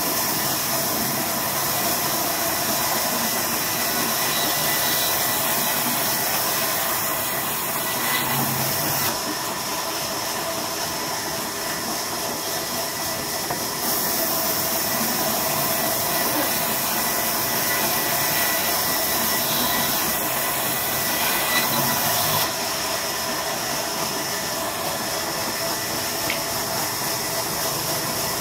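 Large sawmill band saw running, its blade ripping lengthwise through a log with a loud, steady hiss over a steady motor hum. The sharper part of the hiss thins out about a third of the way in, comes back, and thins out again near the end.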